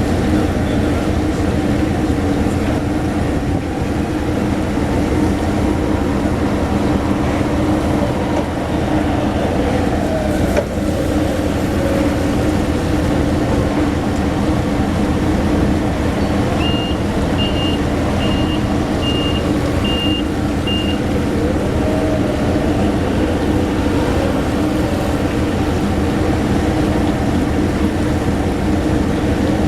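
Heavy diesel machinery running steadily with a low drone, the working noise of a fish-unloading quayside. About two-thirds of the way through, a string of about seven short high warning beeps sounds over it for roughly four seconds.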